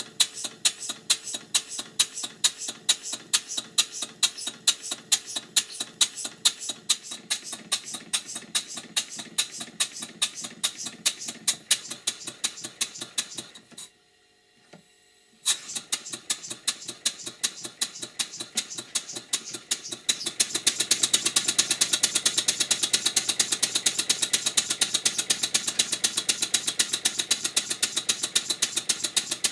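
Vertical model steam engine running in, with a quick, even beat of exhaust and valve-gear strokes. The beat drops out for a second or so around the middle, then returns, louder and denser from about two-thirds of the way in.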